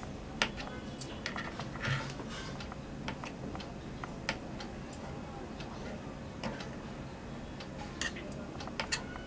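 Kitchen knife cutting boiled potatoes on a cutting board: irregular sharp taps as the blade goes through the soft potato and meets the board, over a steady low background hum.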